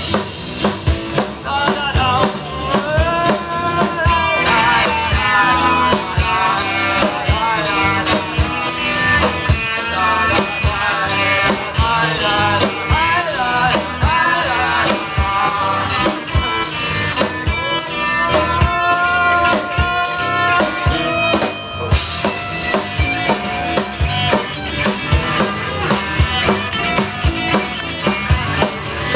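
Rock band playing an instrumental passage: a gliding lead melody over a steady drum beat and bass, after a last sung 'da-da-da' about two seconds in.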